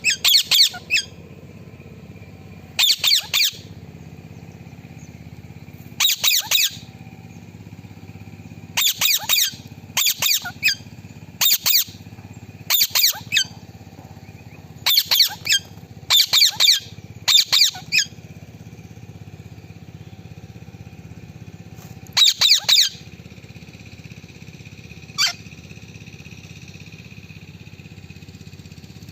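Indian ringneck parakeet giving short, high-pitched squawking calls in quick clusters of several notes, repeated every few seconds. The calls stop after about 23 seconds, with one last single note a little later, over a steady low background noise.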